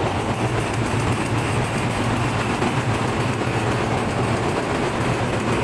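Ship's engine-room machinery running steadily: a constant low hum under a loud, even rush of noise.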